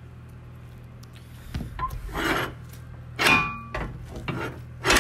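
Rusty sheet-metal panels being handled, knocking and scraping in three louder bursts over about three seconds, one followed by a brief metallic ring.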